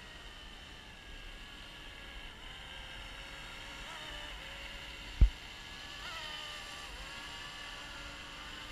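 Small RC scale helicopter in flight: its electric rotor motors give a steady whine of several tones, the pitch dipping and rising a little around the middle. A brief low thump about five seconds in.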